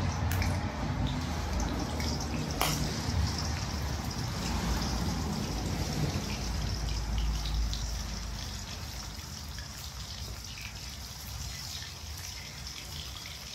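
Pieces of pork fat frying in a wok, with a steady sizzle and fine crackle as the lard renders out. One sharp tap comes about two and a half seconds in, and the sizzle eases off over the second half.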